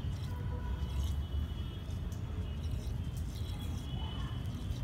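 Water swirling down a drain through a perforated dome drain cover: a steady low rumble with faint high ticks.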